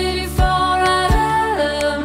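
Background music: a held melody that slides between notes, over a steady bass and a soft low beat about every three-quarters of a second.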